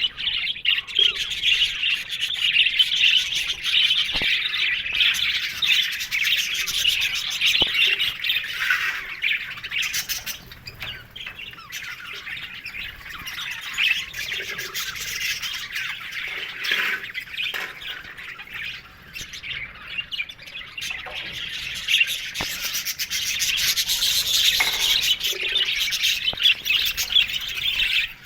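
A colony of budgerigars chattering and warbling together: a dense, continuous twittering of many overlapping birds. It is busiest over the first several seconds and again near the end, thinning out in between.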